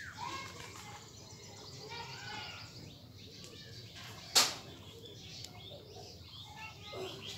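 High, short chirping calls repeat throughout, with a fast even string of about eight chirps a second near the end. About four and a half seconds in, a single sharp click is the loudest sound.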